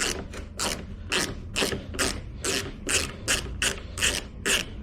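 Ratchet wrench with an 8 mm socket working a mirror-mount fastener loose: quick back-and-forth ratcheting strokes, about two to three a second.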